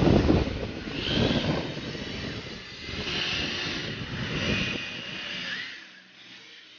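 Motors of 1/10-scale electric RC drift cars whining as the cars drift past, the high whine rising and falling several times, over a heavy rumble of wind on the microphone that is loudest at the start. The sound fades out about six seconds in.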